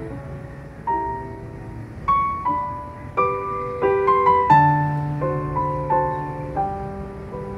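Soft background music of piano: single struck notes and chords ringing out and fading, with a run of higher notes in the middle.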